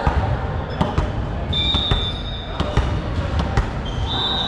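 A volleyball bouncing on a sports-hall floor, several separate thumps. A referee's whistle blows twice, each a steady high note about a second long: once about a second and a half in and again near the end.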